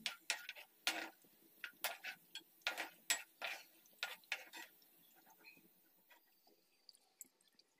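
Kitchen utensils clinking and knocking against a pot or dish in a run of quick irregular taps that thin out after about five seconds.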